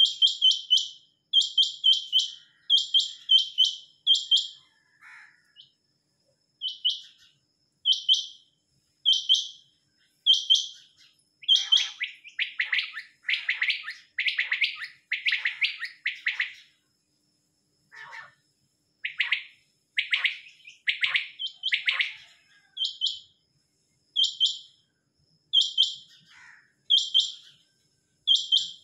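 Caged quails calling: short, sharp high calls in quick groups of two or three, repeated about once a second. Through the middle a lower, faster run of calls joins in for several seconds.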